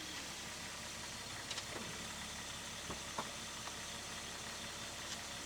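Steady car engine and road noise with a few faint clicks.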